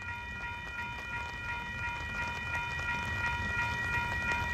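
Railroad crossing bell ringing on and on, over the low rumble of a slow-moving freight train that grows slowly louder.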